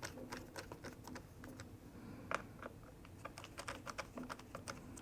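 Faint, irregular small clicks and taps of a small screwdriver working the screws that hold a new battery in a MacBook Air A1466, as the screws are snugged down.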